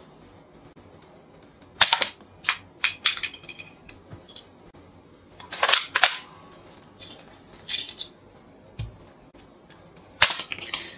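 Plastic toy sniper rifle firing ball bullets and being worked by hand: several bursts of sharp plastic clacks and snaps. The loudest come about two seconds in, midway and near the end, with quiet between.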